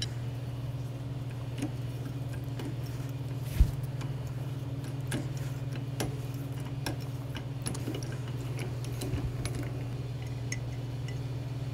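Hand tap in a T-handle tap wrench being turned in a hole in square steel tube, giving faint, irregular small metal clicks and ticks, with one sharper knock about three and a half seconds in. A steady low hum runs underneath.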